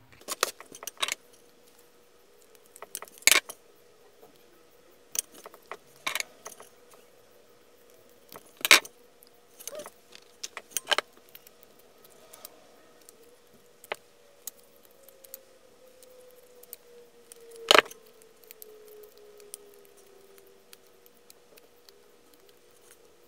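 Scattered sharp clicks and clinks of hands working with heat-shrink tubing, a plastic parts tray and a pair of tongue-and-groove pliers used to stretch the tubing open, with one loud clack a little past halfway.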